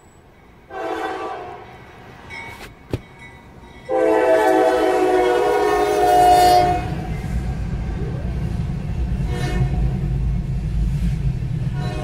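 Norfolk Southern diesel freight locomotive's air horn: a short blast, then a long blast about four seconds in. After the horn stops, the train rumbles past close by. A single sharp click sounds just before the long blast.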